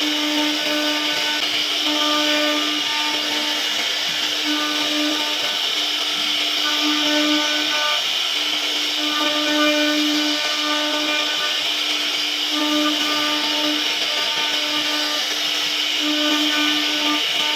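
CNC router spindle carving wood: a steady high whine, with a lower tone that cuts in and out every second or so as the cutter moves through the cut.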